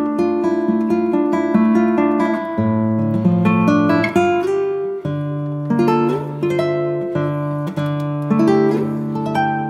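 Background music: an acoustic guitar strumming and picking chords, with the chord changing every couple of seconds.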